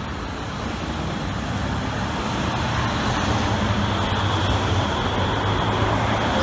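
Street traffic, with cars passing and a SEPTA PCC streetcar approaching on the Girard Avenue line, the running noise building steadily louder as the streetcar draws near.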